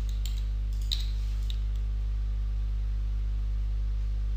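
Steady low electrical hum on the recording, with a few faint clicks in the first second and a half, the clearest about a second in.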